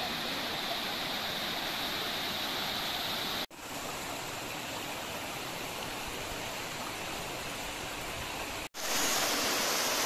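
Steady rush of water from a rocky monsoon stream and waterfall. It breaks off abruptly twice, about three and a half seconds in and near the end, and the last stretch is louder.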